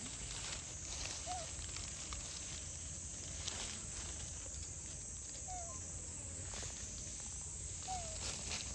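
Outdoor ambience: a steady high hiss with scattered light rustles. Three short, faint chirping animal calls come a few seconds apart.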